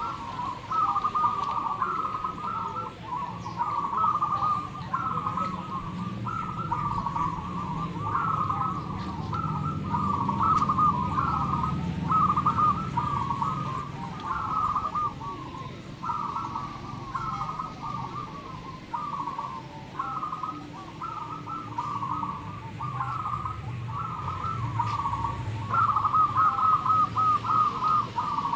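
Many zebra doves cooing at once, their short repeated coos overlapping without a break, over a low background rumble.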